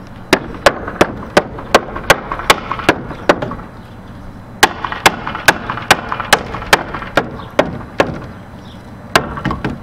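Hammer striking a diagonal wooden brace nailed to a stud wall frame, knocking it loose: a quick run of about nine blows, a pause of about a second, another run of about nine, and one last blow near the end.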